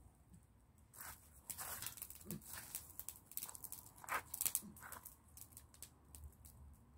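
Open wood fire crackling faintly as sticks and embers are shifted and fed in, with a run of sharp snaps and clicks from about one to five seconds in.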